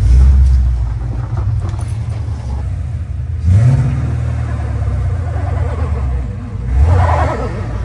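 Gen 1 Ford Coyote 5.0 V8 in a Foxbody Mustang running loud, with three blips of the throttle where the pitch sweeps up: at the start, about three and a half seconds in, and near the end.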